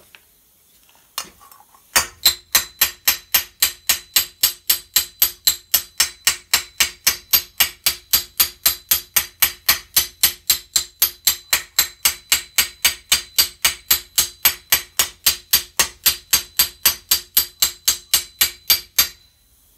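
Planishing hammer tapping a steel knee cop over a steel stake, smoothing out the hammer marks. Even, light blows come about three a second, each with a ringing note from the steel; they start about two seconds in and stop just before the end.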